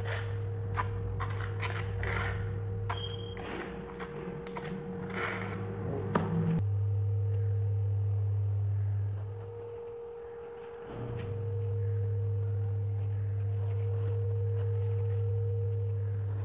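Trowel scraping and tapping mortar along the edge of a ceramic skirting tile, a series of short scrapes and clicks over a steady low hum. The scraping stops suddenly about six seconds in, leaving the steady hum alone, which drops away briefly near the middle.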